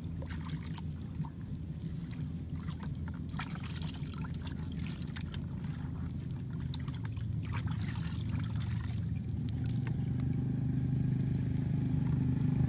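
A motor engine's low, steady drone that grows louder through the second half, with scattered small clicks and light water sounds over it.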